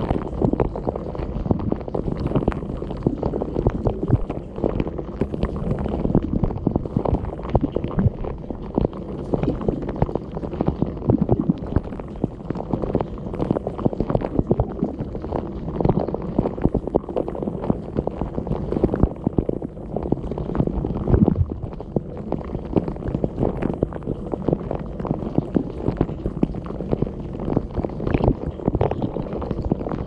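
Dishwasher wash cycle heard from inside the tub: the spray arms throw water over the dishes and walls in a dense, muffled rush, broken by constant irregular splashes as jets strike the camera.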